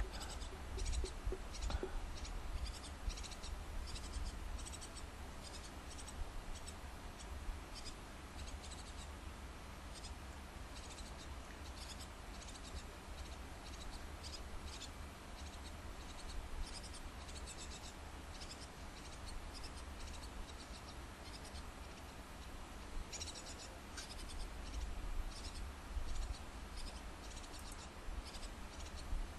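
Faint, irregular scratching and rustling of a tit and her three chicks moving about on the nest inside a wooden nest box during feeding, over a steady low hum.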